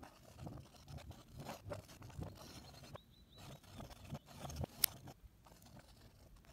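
Paint being stirred in a plastic roller tray with a wooden stirring stick: soft, irregular wet scraping and squelching against the tray, with one sharp click about three-quarters of the way through.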